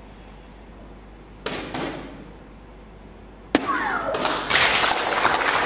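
Phoenix electronic dart machine: a couple of knocks, then a soft-tip dart hits the board with a sharp click about three and a half seconds in and the machine plays its single-bull sound effect, a falling tone followed by a loud, crackling burst of noise.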